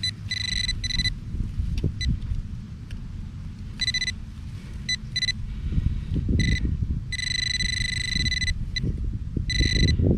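A metal detector beeping with a high steady tone in on-off bursts of uneven length, the longest over a second about two-thirds in, as it signals small bits of metal in the side wall of a dig hole. Low scraping and handling noise from the digging runs underneath.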